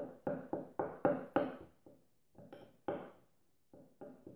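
A spoon stirring stiff icing in a bowl, knocking and scraping against the bowl in quick strokes, about three a second at first, then slower and fainter. The icing is still too firm to stir smoothly.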